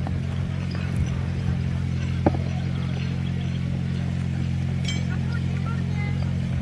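A steady low hum, like a motor running, with a single sharp click about two seconds in.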